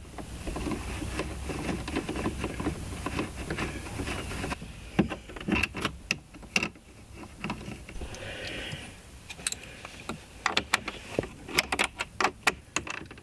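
Small clicks and taps of a 7 mm socket driver turning the screen's mounting screws and knocking against the plastic dash frame, scattered at first and coming thick and fast near the end.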